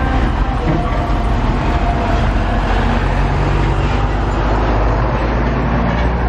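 Heavy diesel tractor-trailer carrying a load of concrete blocks passing close by: a steady low engine and tyre rumble that grows louder about halfway through as the trailer draws alongside.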